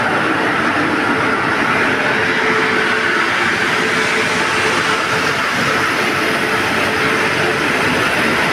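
Indian Railways electric locomotive and its train moving slowly past along a station platform: a steady noise of running gear and wheels with a faint steady hum.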